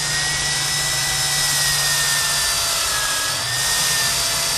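Water-fed electric core drill running steadily while cutting into concrete, its motor whine holding a near-constant pitch that wavers slightly.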